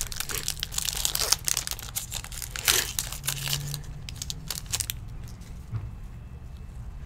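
Plastic wrapper of a baseball card pack crinkling and tearing as it is ripped open by hand, with dense crackles that thin out about five seconds in.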